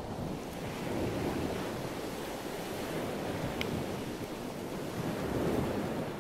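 A dachshund digging in beach sand right beside the microphone: a rough, continuous scraping and spraying of sand, mixed with wind on the microphone.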